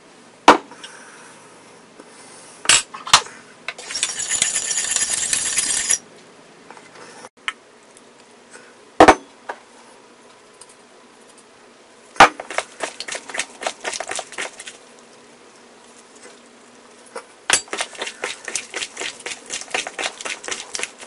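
Kitchen handling sounds: several sharp single knocks of metal kitchenware and a hiss of about two seconds, then two runs of quick clicking as gloved hands mix raw shrimp in a stainless steel bowl.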